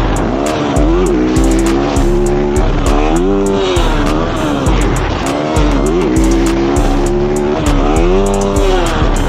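Dirt bike engine revving up and down in repeated surges, over a hip-hop beat with deep bass and a steady hi-hat.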